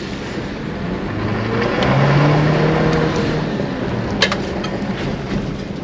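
Chevy Colorado ZR2's engine revving up under acceleration in Baja mode, which holds the revs high, its pitch rising from about a second in until past three seconds. Underneath is a steady rush of tyres on a dirt road, and there is a single sharp tick a little past four seconds.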